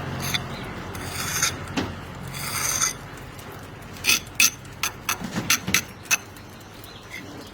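A hand tool scraping excess mortar off brickwork joints in a few rasping strokes, then a quick run of sharp clicks between about four and six seconds in.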